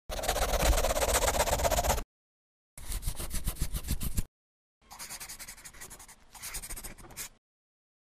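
Scribbling sound effect, like a marker drawn fast across paper, in three bursts of rapid strokes with short gaps between them. Each burst is quieter than the one before.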